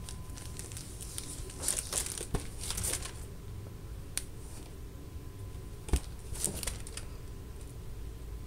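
A cat pawing at a picture leaning against a wall, making scratchy, crinkling rubs. The noise comes in two bouts, about two seconds in and again near seven seconds, with a single sharp knock just before the second bout.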